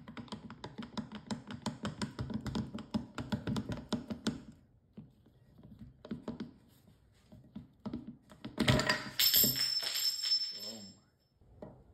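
Parts of a disassembled swash-plate AC compressor being handled on a workbench: a fast run of metallic clicks and rattles for about four seconds, a few light taps, then a sharp metal clunk with ringing and scraping as the pistons are worked out of the cylinder block.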